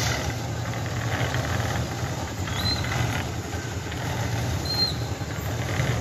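Engine of construction machinery running steadily with a low drone, with two brief high squeaks about two seconds apart.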